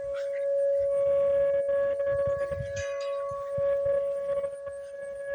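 Outdoor tornado warning siren sounding its steady test tone, loud, holding one pitch while its loudness swells and dips.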